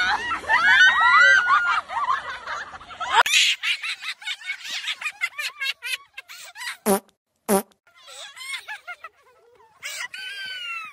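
High-pitched shrieking and laughing young voices, then a run of crunching and rustling in snow with two sharp knocks about seven seconds in, and a short squeal near the end.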